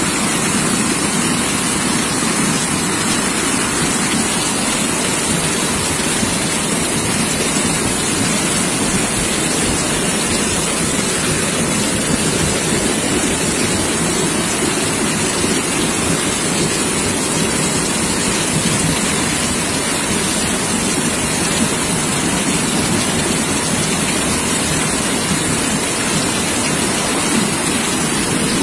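Heavy rain pouring down together with the rush of a muddy flash-flood torrent, a steady, loud, unbroken noise.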